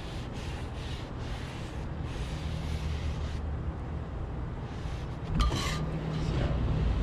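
Paper towel held in tongs rubbing oil over the hot rolled-steel griddle top, over a steady low rumble. A sharp metallic clink, likely the tongs striking the griddle, about five and a half seconds in.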